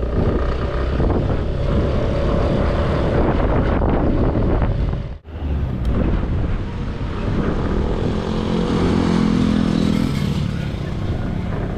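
Motorcycle engine running under way with steady wind and road noise. The sound drops out sharply for a moment about five seconds in.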